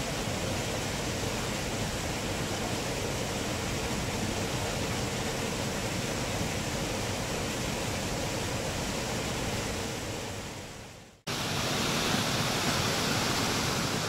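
Small waterfall pouring into a rock pool: a steady rush of falling water. About eleven seconds in it fades out and comes straight back, closer and louder, with more hiss.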